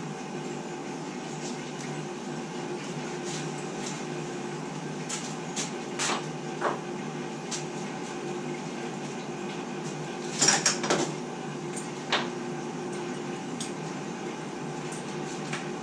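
Tools and small hardware clinking and tapping as they are handled on a wooden workbench: scattered sharp knocks, the loudest cluster about ten seconds in. A steady machine hum runs underneath.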